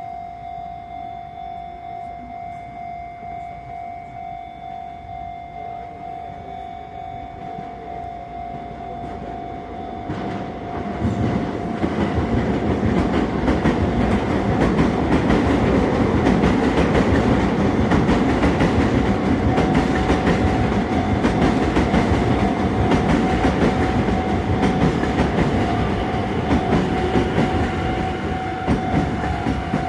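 Japanese level-crossing warning bell ringing in an even, repeating pulse. About ten seconds in, a Sotetsu train runs through the crossing, and its passing noise is loud for most of the rest while the bell keeps ringing.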